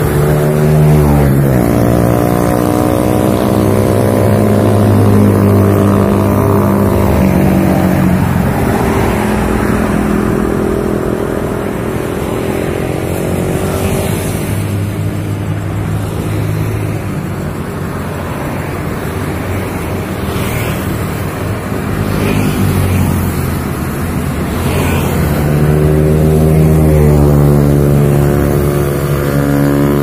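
Road traffic passing close by: engine and tyre noise of cars going past. One engine note falls in pitch as a vehicle passes in the first couple of seconds, and another rises as a vehicle approaches near the end.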